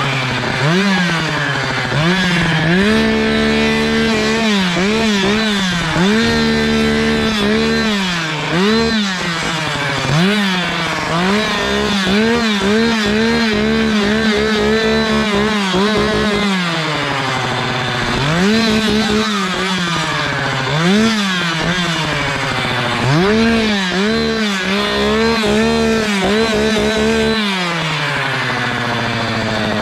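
Echo two-stroke gas chainsaw revved over and over, snapping up from idle to high revs, holding there for a second or a few, then dropping back.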